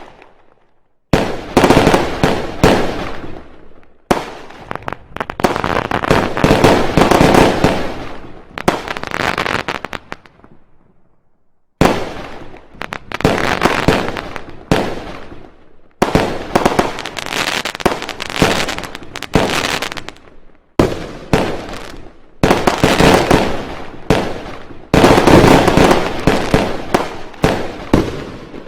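Fireworks: rapid strings of bangs and crackling in loud bouts that stop and restart abruptly several times, with a pause of about two seconds near the middle.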